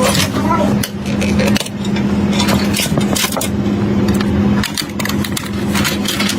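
Computer parts being handled during a PC build: irregular clicks, knocks and scrapes over a steady low hum.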